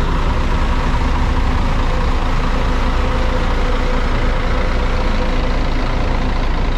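Diesel engine of a parked intercity coach idling steadily, a constant low hum.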